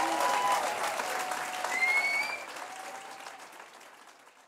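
Audience applauding and cheering after a marimba solo. The applause fades away over the last two seconds.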